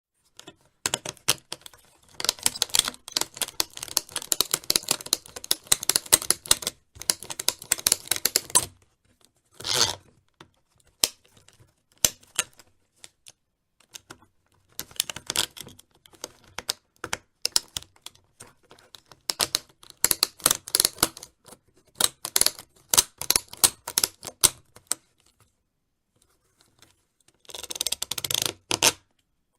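Plastic snowboard binding ratchets being cranked, fast runs of clicks in several spells with single clicks between them, and two short scraping rasps of the straps or bindings being moved, one about ten seconds in and one near the end.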